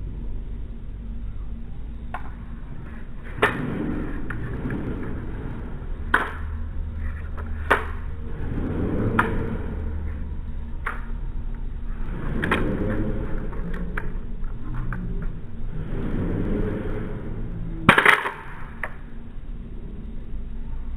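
Cold Steel FGX plastic balisong butterfly knife being flipped, played slowed down: its handles and blade clack about a dozen times at uneven gaps, with one loudest clack near the end, over a steady low hum.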